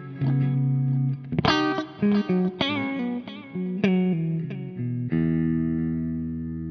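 Electric guitar reamped through a Soldano SLO100 clone amplifier and heard over its speaker: a quick run of picked single notes, one bent with vibrato, then a chord struck about five seconds in and left ringing.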